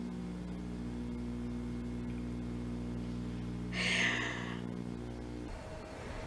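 Steady electrical hum, several evenly spaced low tones at once, with a short breathy hiss about four seconds in. The hum cuts off suddenly near the end, leaving faint room tone with a thin higher tone.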